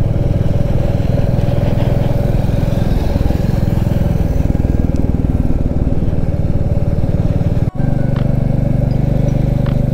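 Motorcycle engine running steadily under way, with a constant low drone and road noise. The sound breaks off for an instant about eight seconds in, then picks up again.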